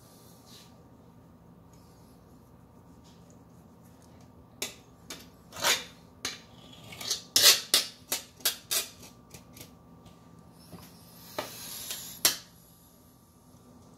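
Fillet knife blade tapping and scraping against a plastic cutting board while trimming fish fillets: quiet at first, then a run of sharp clicks and knocks through the middle, a short scrape and one last knock near the end.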